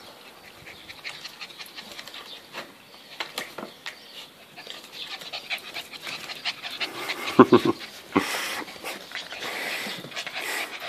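Border collie puppies panting as they play, with scattered clicks throughout and a cluster of louder short sounds about seven and a half seconds in.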